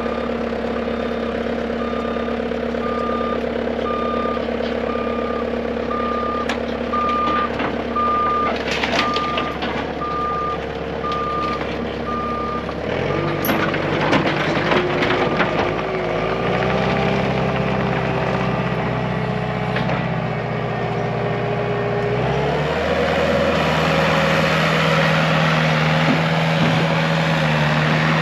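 A loader's reversing alarm beeps about once a second over its running engine. About 13 seconds in the beeping stops and the engine speed steps up and down several times as the machine works.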